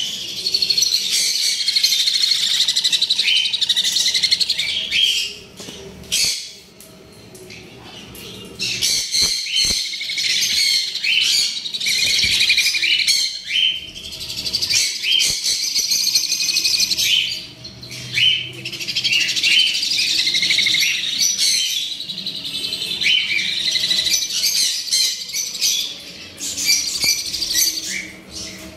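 A brood of nestling parrot chicks calling together in a dense chorus of high chirps, in loud bouts broken by two short lulls.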